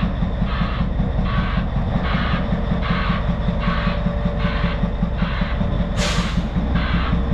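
Caterpillar 773B haul truck's diesel engine running as the truck backs up, its backup alarm beeping about one and a half times a second. About six seconds in comes one short, sharp hiss of released air.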